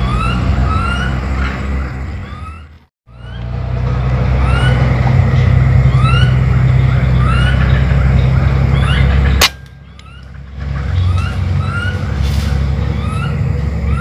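A steady low rumble with short rising chirps repeating about twice a second, cut off briefly about three seconds in. About nine and a half seconds in comes a single sharp crack of a rifle shot, after which the sound drops low for about a second before the rumble and chirps return.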